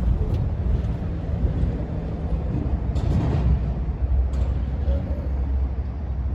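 Steady low rumble of a running vehicle engine, with a couple of light clicks about three and four and a half seconds in.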